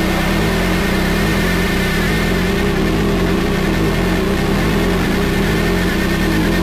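Noise music: a loud, dense, unchanging wall of distorted rumble and hiss, with no rhythm and no breaks.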